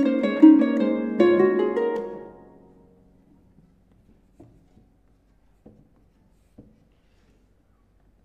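Concert pedal harp playing three loud chords close together, ringing out and dying away by about three seconds in. A pause follows, broken only by a few faint knocks.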